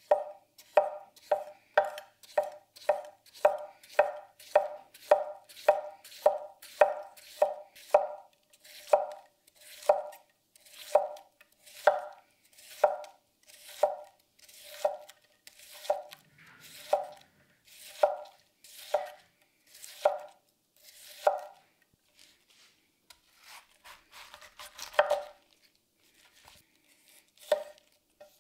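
Sushikiri-style kitchen knife slicing red cabbage into shreds on an end-grain wooden board: crisp cuts, each ending in a knock of the blade on the board. They come about two a second at first, slow to about one a second, and thin out to a few scattered cuts near the end.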